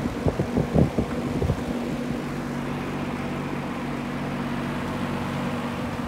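1956 Signal box fan running on high with its motor freshly oiled and warming up: a steady motor hum under the rush of air from the blades. A few low thumps come in the first second and a half.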